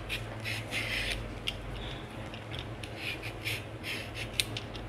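Y-shaped vegetable peeler scraping down a peeled carrot in quick repeated strokes, about two a second, shaving it into thin sheets. A couple of sharp clicks come among the strokes.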